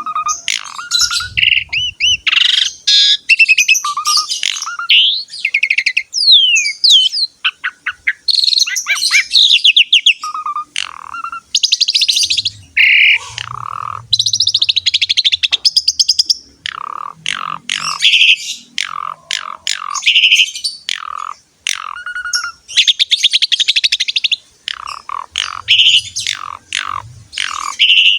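Javan pied starling (jalak suren) in full, prolific song: a long, varied string of loud whistles, pitch glides, fast buzzy rattles and chattering notes, broken only by brief pauses.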